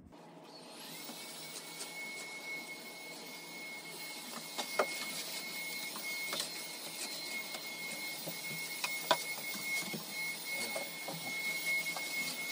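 Cordless stick vacuum cleaner switched on: its motor spins up to a steady high whine over a rush of air, with a few sharp clicks as it is pushed across the floor.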